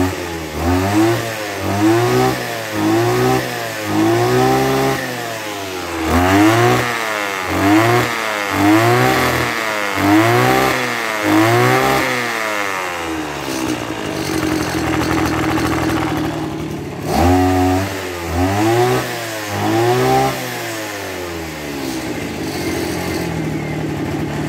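Robin NB262 brush cutter's 26cc two-stroke engine revved in quick repeated throttle blips, its pitch rising and falling about once a second. The blips come in three runs with steady idling between them, and it settles to idle over the last few seconds.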